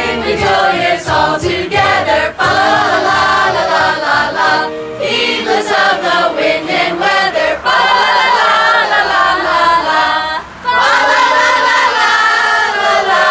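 A mixed group of men's and women's voices singing a Christmas carol together. After a brief break about ten seconds in, they hold a long final note.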